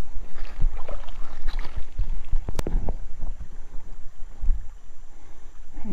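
Water sloshing and splashing in a shallow creek, with a low rumble of wind on the microphone and a sharp click about two and a half seconds in.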